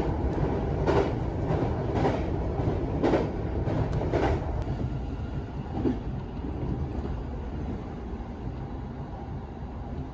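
Commuter train running, heard from inside the carriage: a steady low rumble with sharp wheel clicks over rail joints about once a second in the first few seconds, growing a little quieter toward the end.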